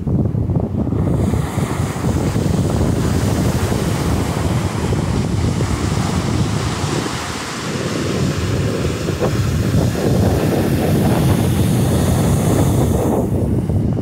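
Small ocean waves breaking and washing up a sandy beach in a steady hiss, with wind buffeting the microphone in a low rumble.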